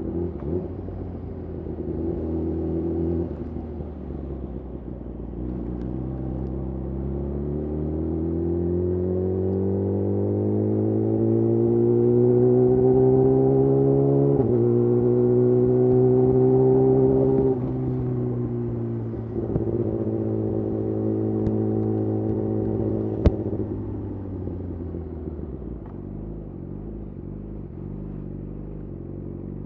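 Yamaha YZF R6's inline-four engine through a de-catted Akrapovic slip-on exhaust, under way: the revs climb steadily for about ten seconds, dip briefly about halfway through as the gear changes, hold, then ease off and die down to low revs toward the end. A single sharp click comes about two thirds of the way in.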